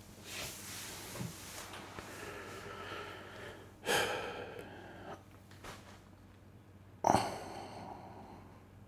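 A person breathing out audibly close to the microphone, three breaths about three to four seconds apart, each starting suddenly and fading away.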